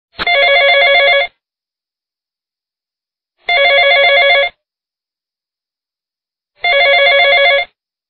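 Telephone ringing three times: a loud, rapidly trilling ring of about a second each, repeating about every three seconds with silence in between.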